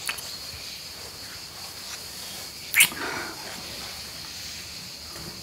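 Two people kissing: soft breathing and lip sounds over a steady high hiss, with one sharper, louder smack about three seconds in.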